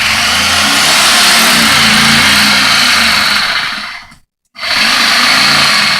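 Chicago Electric corded reciprocating saw running at speed as its blade saws into a pumpkin. It stops abruptly about four seconds in and starts again half a second later.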